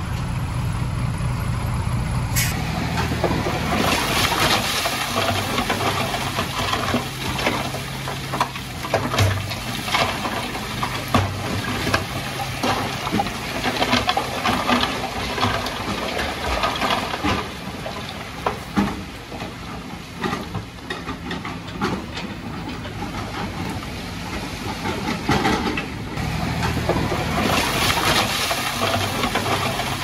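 Dump truck engine running as the hydraulic bed tips up and its load of rocks slides out, with many sharp rock clatters. A steady hiss comes in about two seconds in.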